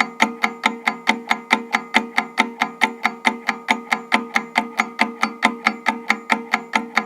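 Mechanical wind-up analog timer ticking fast and evenly, about five ticks a second, as it runs down its 60-second count.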